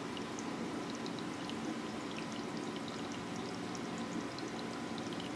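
Steady trickling and rushing of water circulating through a reef aquarium, with a low pump hum and small scattered drip and bubble ticks.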